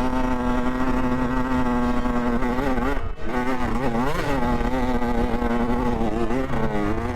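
Dirt bike engine running at steady revs, dropping off briefly about three seconds in, then the revs falling and climbing again before settling, with another dip and rise near the end.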